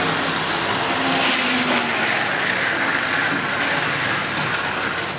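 Model railway train, a Class 31 locomotive model hauling coaches, running along the layout's track: a steady rushing noise of motor and wheels on the rails, with a low motor hum that fades out about two seconds in as the train moves away.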